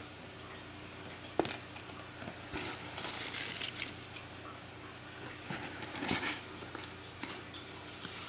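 Crinkle-cut paper shred rustling in bursts as a hand rummages through a box and lifts out a wrapped toy, with one sharp tap about a second and a half in.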